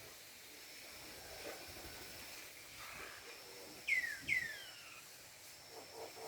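Faint outdoor ambience with a steady high thin hum. About four seconds in come two short animal calls in quick succession, each sweeping sharply downward in pitch.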